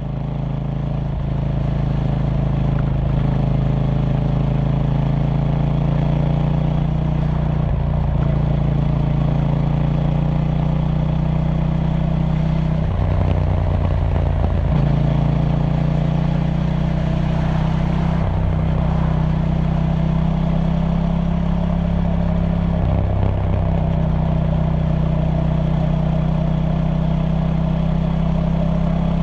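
KTM Duke 790's 799 cc parallel-twin engine running through its stock exhaust, a steady engine note with a few brief shifts in pitch and level.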